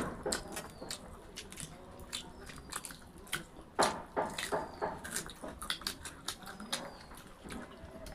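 Close-miked eating: chewing and crunching of fried food, with many small sharp clicks and crackles, and a louder crunch or knock about four seconds in.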